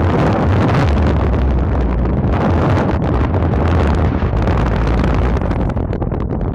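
Wind buffeting the microphone: a loud, continuous rumbling rush with heavy low-end thumping, easing off slightly near the end.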